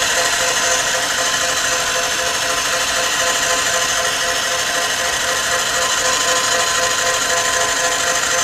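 Electric stand mixer running at high speed, a steady motor whine with the whisk beating eggs and sugar in a steel bowl until the mixture gains air and structure.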